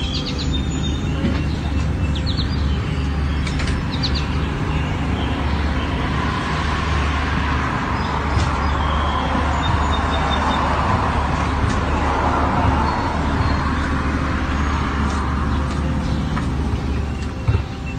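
Engine noise outdoors: a steady low hum with a rushing sound that builds up toward the middle and then fades, as of a vehicle passing. A few bird chirps come in the first few seconds.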